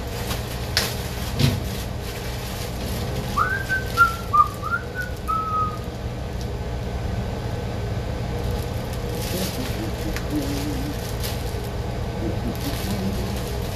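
A person whistles a short phrase of a few rising and falling notes about three seconds in, over a steady low hum. A plastic bag rustles faintly later on.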